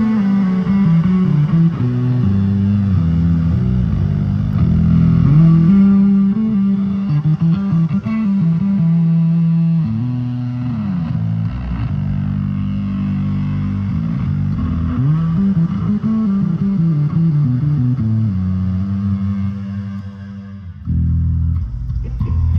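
Electric bass guitar played through stage bass cabinets: a melodic run of low notes with slides up and down between them, briefly dropping away near the end.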